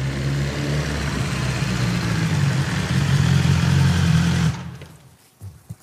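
Motorcycle engine running as the bike rides slowly in, getting steadily louder, then switched off abruptly about four and a half seconds in.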